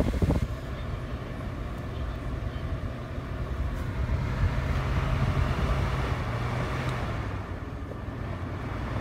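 Holmes Lil Blizzard electric fan switched off and spinning down: the motor hum drops off about half a second in, leaving a low hum and the soft whir of the coasting blades that slowly fade.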